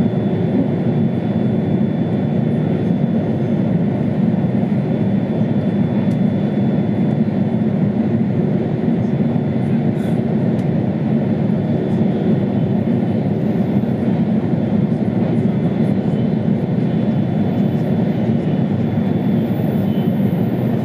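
Running noise of an E2 series Tohoku Shinkansen car at speed, heard inside the cabin: a steady, loud low rumble of wheels and rushing air, with a faint thin high whine above it.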